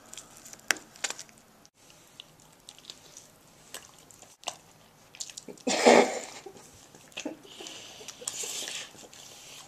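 A person eating from a bowl: chewing and biting with small utensil clicks, and one louder burst about six seconds in.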